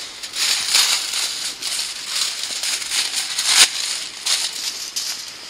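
Sheet of aluminium foil crinkling as it is handled and folded, in irregular crackly bursts; the loudest comes about three and a half seconds in.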